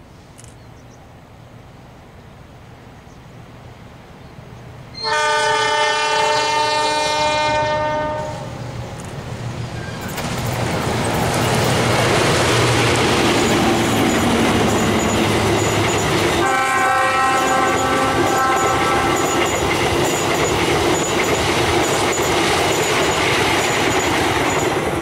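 A CC206 diesel-electric locomotive hauling a passenger train sounds its multi-tone horn about five seconds in. It then runs past with its coaches, giving a loud steady rumble with regular wheel clatter, and blows a second horn blast about halfway through.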